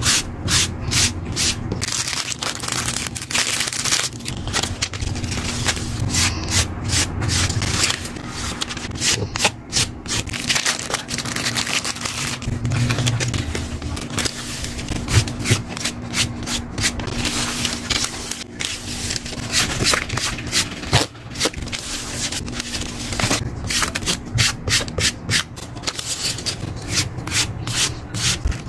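Paper being rubbed and scraped by hand in quick runs of short strokes, as in journaling work with stickers and paper, over a faint steady hum.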